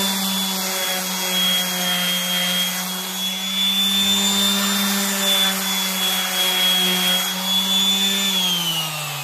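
Electric random orbital sander running steadily against a wooden board, a constant motor hum with a high whine. Near the end it is switched off and its pitch falls as it winds down.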